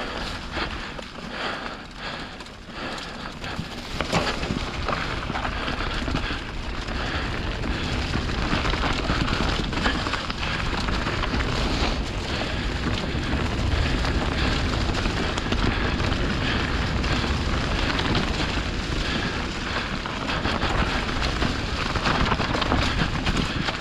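Mountain bike riding downhill on a leaf-strewn, rocky trail: tyres crunching over dry leaves and loose stones, with the bike clattering over the rocks and wind rushing on the microphone. It gets louder about four seconds in as the bike picks up speed.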